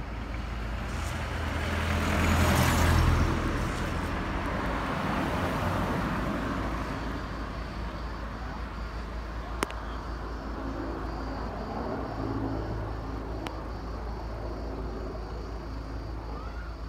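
Road traffic: a vehicle passes, swelling to its loudest two to three seconds in and fading away, over a steady low rumble. A single sharp click comes near the middle.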